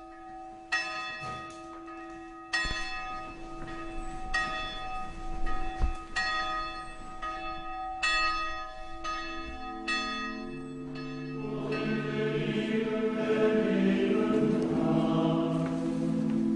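Church bells ringing, with a strike about every second. About ten seconds in, a choir of men's voices begins chanting as the bells fade out.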